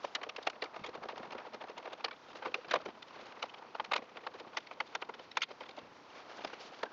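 Irregular clicks and light knocks of hand work on the front end of a van, as lamp and grille parts are worked loose.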